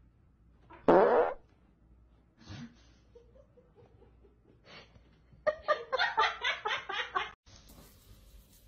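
A person farting once, short and loud, about a second in. Near the end a person laughs in a quick run of bursts for about two seconds.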